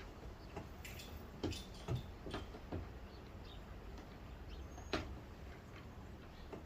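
Scattered light clicks and knocks of hand tools and small parts being worked inside a car door while fitting a door handle's rod clip, a quick run of them near the start and the sharpest one about five seconds in.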